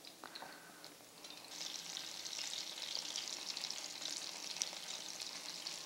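Small patties frying in hot oil in a pan, sizzling and crackling. The sizzle comes up about a second and a half in and then holds steady.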